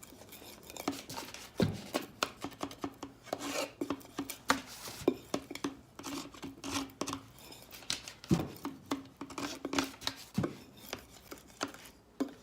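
Scraper scraping dried paint off a glass pane in many short, irregular strokes.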